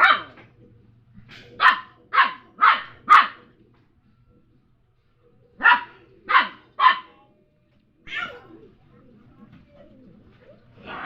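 Dog barking in short runs: a bark at the start, four quick barks about two seconds in, three more about six seconds in, then single barks near eight seconds and at the very end.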